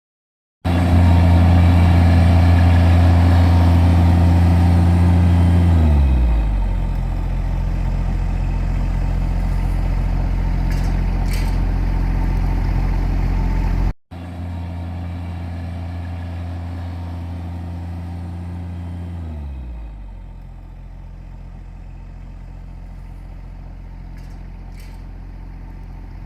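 A large engine running fast and steady, then slowing down to a lower idle about six seconds in. After an abrupt cut, the same engine runs fast again and drops back to idle about two-thirds of the way through.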